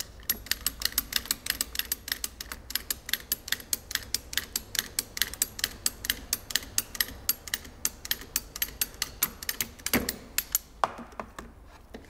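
Ratchet cable cutter cutting through a thick insulated power cable: the pawl clicks at about six or seven a second as the handles are pumped, then a few louder knocks about ten seconds in.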